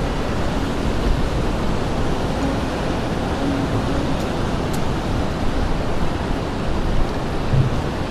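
Steady rush of ocean surf and wind, with wind rumbling heavily on the microphone.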